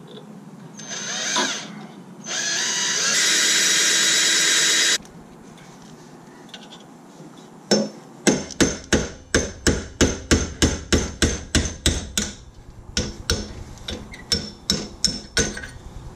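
Cordless drill drilling into a seized suspension bolt, first a short burst and then a steady run of a couple of seconds. After a pause comes a long series of sharp metal-on-metal blows, about three a second with one short break, as a punch is hammered against the bolt to drive it out of the rusted-in rear lateral link bushing.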